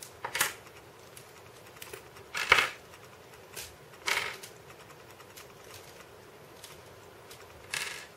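Hard plastic LEGO Technic parts clicking and clacking as they are handled and pulled apart, a few separate clicks with the loudest about two and a half seconds in.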